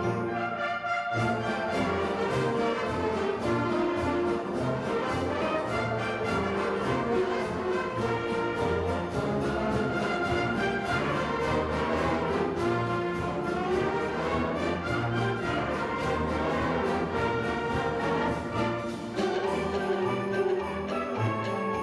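Concert wind band playing, with brass prominent over a steady percussion beat.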